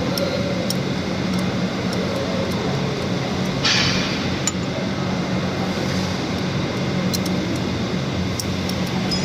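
Steady low mechanical hum with a background noise bed, a brief hiss about three and a half seconds in, and faint scattered ticks.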